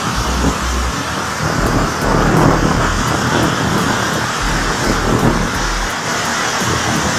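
Typhoon-force wind and driving rain, a loud steady rush that swells and eases in gusts, with low rumbling buffets of wind on the microphone.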